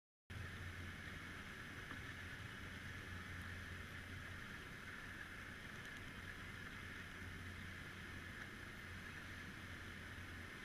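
Faint, steady underwater noise picked up by a submerged camera in its housing: a low even hum under a soft hiss, coming in just after the start.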